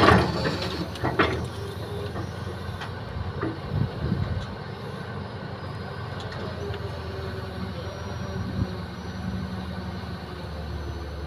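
Hitachi hydraulic excavator's diesel engine running steadily under load as it works the bucket, with a burst of clattering at the very start as the bucket works through soil and stones.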